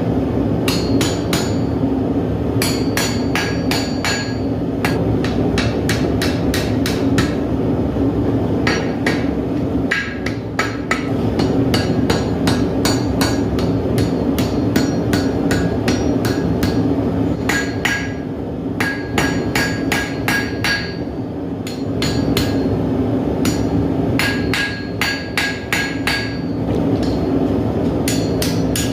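Blacksmith's hammer striking hot steel on an anvil in quick runs of about three to four blows a second, with short pauses between runs and the anvil ringing after the blows. A steady low hum runs underneath.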